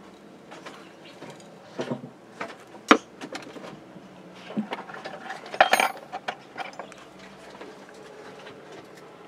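A small metal hand tool clinking and scraping against a cement planter and through gritty sand-and-gravel potting mix. There are irregular taps and scrapes, with a sharp knock about three seconds in and a louder cluster of clinks just before six seconds.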